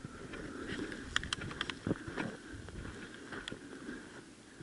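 Footsteps and brush rustling as a hunter moves through dry scrub, with scattered small snaps and clicks in the first half and a couple of dull thumps about two seconds in.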